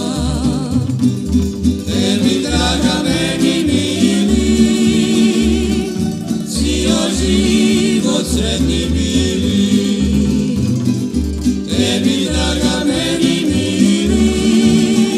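Tamburitza orchestra playing a Croatian folk song, with group singing over plucked strings and a bass line marking the beat.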